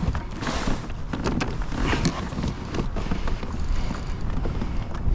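Wind rumbling on the microphone, with scattered short clicks and knocks over it.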